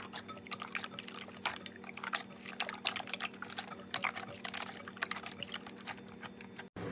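Slime being squished and kneaded by hand, giving a rapid, irregular stream of small wet clicks and pops. It cuts off abruptly near the end.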